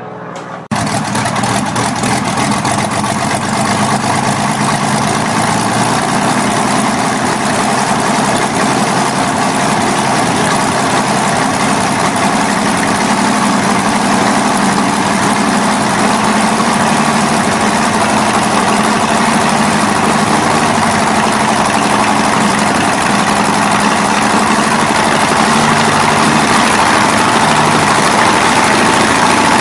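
Six-cylinder inline inverted air-cooled aero engine running steadily on a test stand, heard close to its short exhaust stacks. It comes in loud and abruptly just under a second in and then holds a steady, even note, growing slightly louder.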